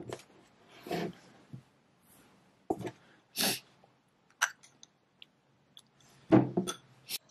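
Eating from a ceramic bowl with a metal spoon: a few separate short sounds of the spoon clinking and scraping in the bowl, mixed with mouth sounds of eating. A soft knock comes at the very start as the bowl is set down.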